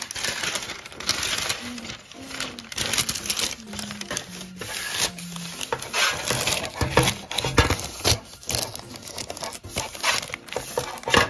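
Baking paper crinkling and rustling as hands press and smooth it into a metal baking pan, with music playing underneath.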